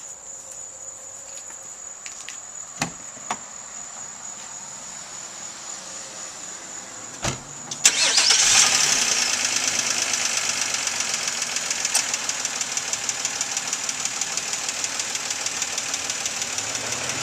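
Crickets chirping steadily, with a few sharp clicks. About eight seconds in, the 2004 Nissan Maxima's 3.5 L VQ V6 is started and runs on at idle with a fast, even ticking, which the owner takes for lifter or valve tap.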